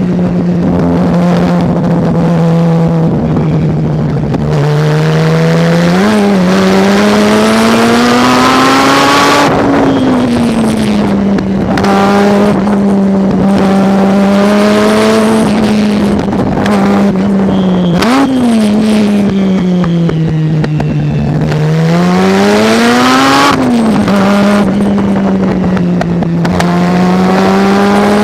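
Racing car engine under hard use on track, its note climbing with revs and then dropping repeatedly as the car accelerates, changes gear and slows for corners. Short sharp rev spikes about 6 and 18 seconds in match throttle blips on downshifts.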